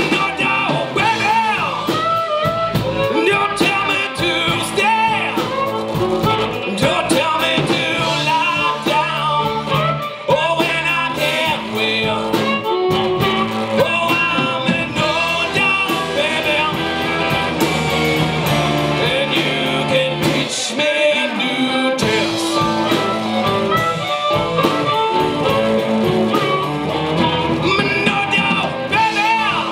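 A blues-rock band playing live: electric guitars over a drum kit, with a male lead vocal.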